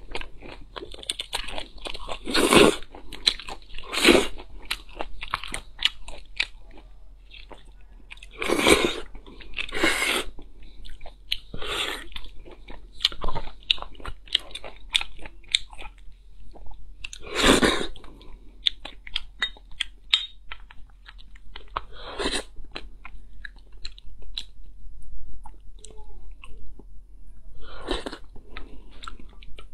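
Close-miked eating of marrow bones: a person chewing, with a constant run of small wet mouth clicks and several louder sudden bites spread through.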